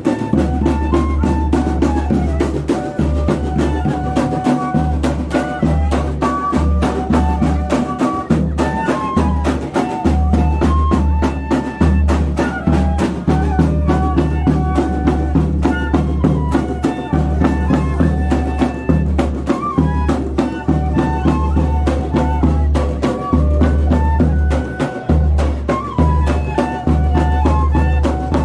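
Banda de pífano playing: bamboo fifes carry a quick, stepping melody over a steady drum and cymbal rhythm with a heavy bass drum (zabumba).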